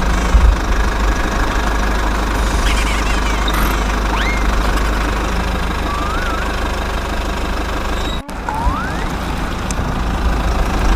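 Steady, loud engine rumble like a diesel vehicle idling, with a few short gliding whistle-like chirps over it. The sound drops out briefly about eight seconds in, then the rumble resumes.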